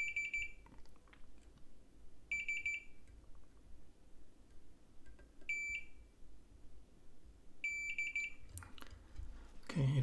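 Multimeter continuity beeper sounding four short, high, pure beeps two to three seconds apart, each one as the probe touches a pad that reads as connected to ground. Light clicks of the probe tip against the circuit board come in between.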